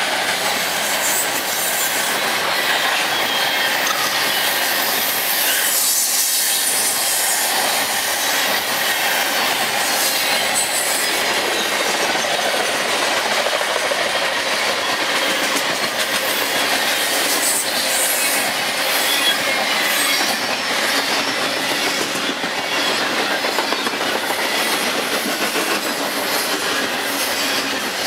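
Steel wheels of a long string of covered grain hopper cars rolling past on the rails, a steady clatter and rumble. At times a faint high wheel squeal sounds over it.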